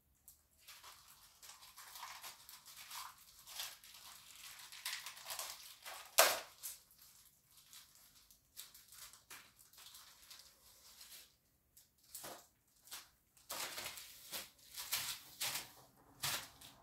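Toy packaging handled by hand, crinkling and tearing in irregular rustles, with one sharp snap about six seconds in.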